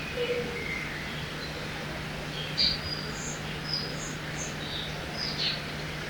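Forest-by-a-river ambience: a steady background rush with several different birds giving short chirps and whistles, the sharpest about two and a half seconds in.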